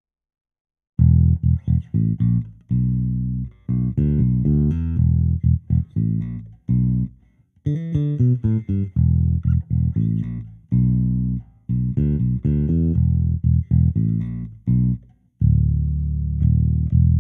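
A sampled Fender Jazz Bass virtual instrument playing a bassline of short plucked notes, several a second, starting about a second in. The last note, near the end, rings longer.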